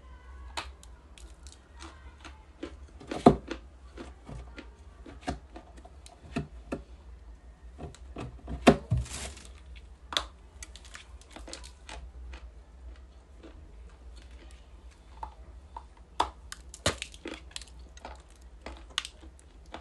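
Ice being bitten and crunched between the teeth: a run of sharp cracks and crunches, with two loud bites about three seconds in and about nine seconds in.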